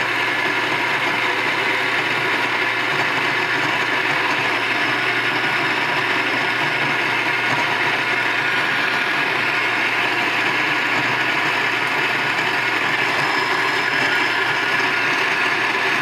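Electric espresso grinder grinding coffee beans straight into a portafilter held under its spout: a steady, unbroken grinding of motor and burrs.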